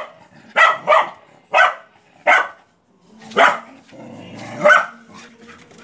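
A dog barking angrily at a gate: six loud, short barks, the first two in quick succession, then single barks about a second apart, with a low growl between the last two.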